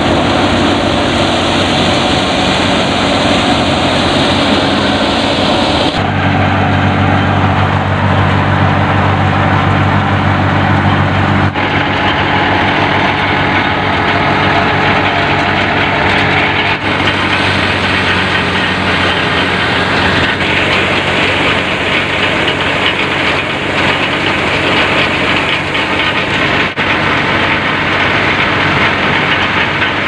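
Tractor-powered wheat thresher running steadily: a steady engine drone mixed with the churning of the thresher as wheat is fed in. The sound changes abruptly a few times.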